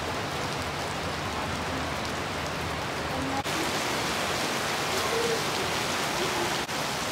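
Steady rain falling and splashing on a metal roof and hard paving, with a couple of brief breaks in the sound.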